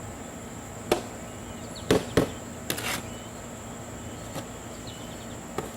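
A few sharp knocks and scrapes, the loudest about two seconds in, as container dirt is dug out and dumped during a potato harvest. Behind them runs a steady high insect drone.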